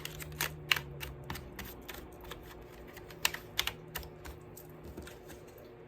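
A string of light, irregular clicks and taps, about two or three a second, over a faint steady hum.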